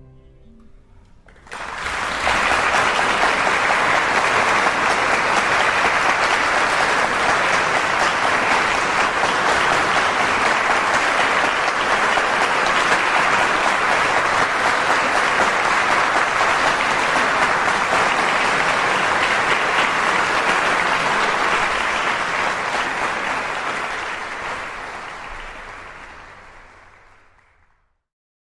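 Audience applauding after the last notes of the music die away. The applause starts about a second and a half in, holds steady, then fades out over the last several seconds.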